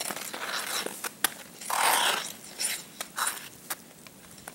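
Ice skate blades scraping and carving on ice in several separate strokes, the loudest about two seconds in, with a few sharp clicks between them.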